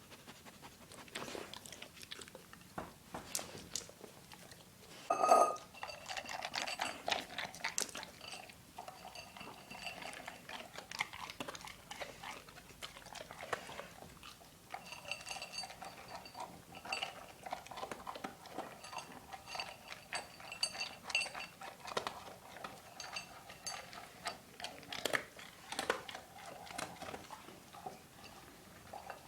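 A dog chewing and crunching its food, with irregular crunches and clicks throughout. There is a louder knock about five seconds in, and a faint ringing tone through much of the second half.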